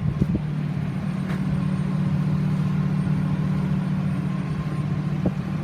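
An engine idling steadily, heard as an even low hum, with a few faint knocks.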